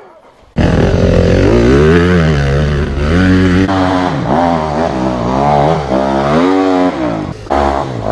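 Dirt-bike engine revving hard, its pitch climbing and dropping again and again as the throttle is opened and closed on a steep, loose hill climb. It starts abruptly about half a second in.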